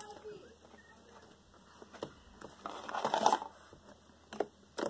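Hands pressing and kneading a thick block of slime, with a burst of handling noise about three seconds in and two short clicks near the end.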